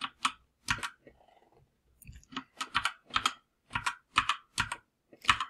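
Computer keyboard being typed: single key clicks at an uneven pace, with a pause of about a second about a second in.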